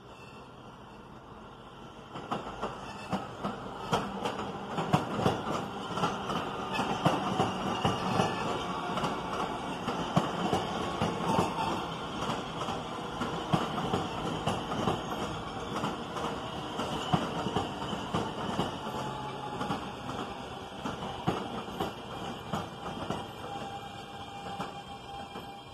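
New York City Subway R160B train with Siemens propulsion running on the tracks, coming up loud about two seconds in. Its wheels clatter over rail joints over a steady motor whine and some wheel squeal.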